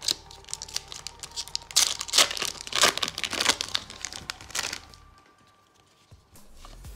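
Foil wrapper of a Japanese Pokémon booster pack being torn open and crinkled by hand: a dense run of crackling, loudest in the middle, that stops about five seconds in.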